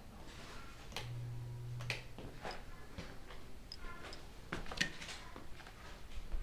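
Scattered light clicks and taps of someone walking through a room wearing a body camera, with a low hum for about a second, starting about a second in.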